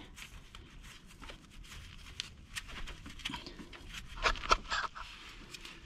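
Faint scattered clicks and scrapes of a wrench working the serpentine belt tensioner's bolt, a few sharper clicks about four seconds in.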